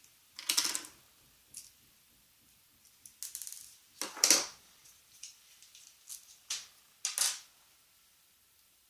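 Small hard plastic parts of a car-alarm key fob case being handled and fitted together: about four short rattling clatters with lighter clicks in between.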